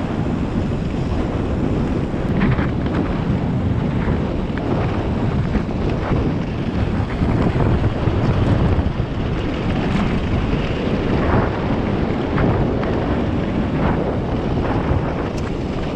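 Wind buffeting the microphone while moving, a loud, uneven low rumble of noise.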